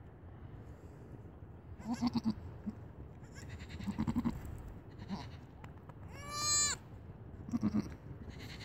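A mother goat gives several short, low calls to her wet newborn kid while nuzzling it. About six seconds in the kid answers with one high, clear bleat, the loudest sound.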